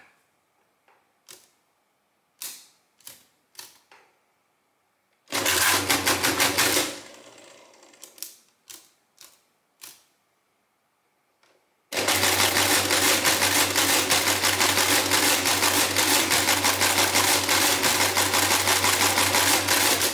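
Rheinmetall SASL electric mechanical calculator: scattered key and lever clicks and a short motor-driven mechanical run of about a second and a half. Then its motor and gearing clatter rapidly and steadily for about eight seconds while it works an automatic division, stopping at the very end.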